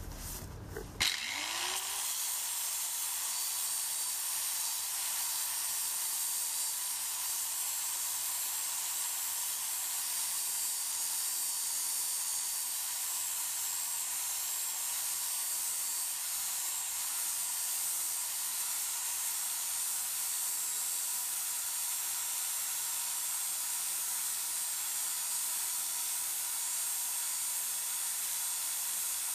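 Electric angle grinder switched on about a second in, spinning up to speed with a rising whine, then running steadily with its disc against the steel pickaxe head, grinding off rust and old metal.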